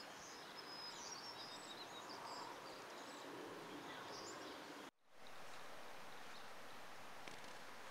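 Faint outdoor ambience: a steady soft hiss with small birds chirping high and briefly through the first few seconds. The sound cuts out for an instant about five seconds in, then the hiss resumes.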